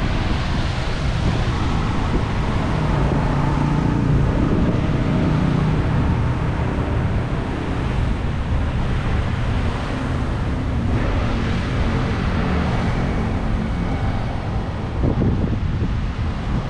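Wind buffeting the camera's microphone: a loud, steady low rumble and rush, with road traffic mixed in behind it.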